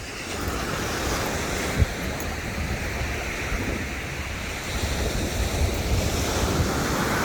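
Ocean surf breaking and washing up the beach, with wind buffeting the microphone in low gusts and a short thump about two seconds in.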